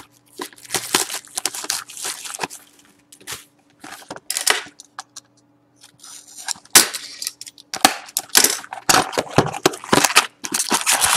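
Plastic shrink wrap crinkling and tearing in irregular crackly bursts as it is slit and stripped off a cardboard box of trading cards, with a short lull about five seconds in.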